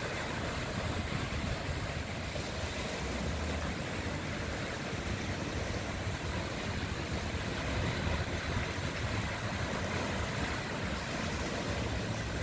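Small ocean waves breaking and washing up a sandy beach in a steady wash of surf, with a steady low drone underneath.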